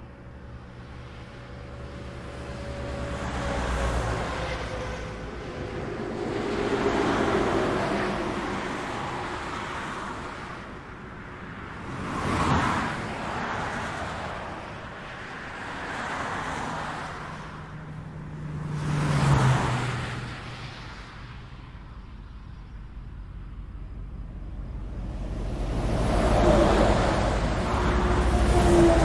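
Highway traffic: a string of vehicles passing one after another, each swelling up and fading away, with the engine tone of a few dropping in pitch as they go by. The sharpest passes come about twelve and nineteen seconds in, and a longer, louder one builds near the end.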